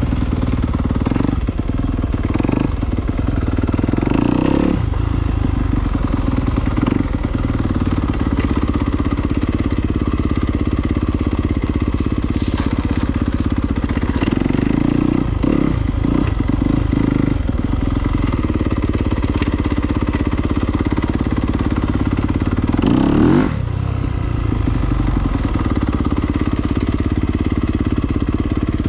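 2019 Yamaha YZ250F dirt bike's 250 cc four-stroke single-cylinder engine running under way, its pitch rising and falling with the throttle. A sharp rev climbs about three-quarters of the way through.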